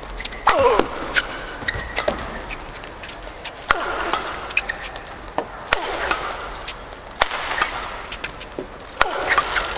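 Men's doubles badminton rally: sharp racket hits on the shuttlecock come in quick, irregular succession, and court shoes squeal briefly on the mat several times as the players lunge and stop.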